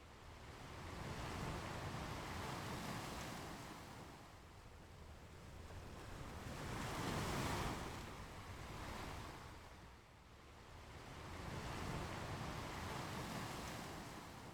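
Ocean waves washing onto a beach in slow swells, three in about fourteen seconds, the loudest about halfway through.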